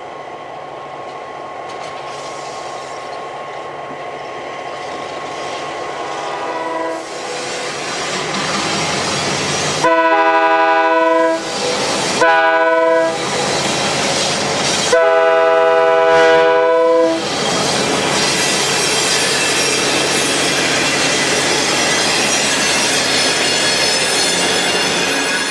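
Diesel locomotive horn on FP9 6508 blowing the grade-crossing signal: a fainter long blast, then a long, a short and a final long blast, loud and close. Then the FP9 and the GP7 behind it pass close by, and the loud rumble of their diesel engines and wheels fills the rest.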